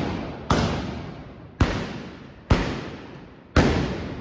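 Trabucaires' blunderbusses (trabucs) firing black-powder blanks: four loud shots about a second apart, each one echoing and dying away before the next.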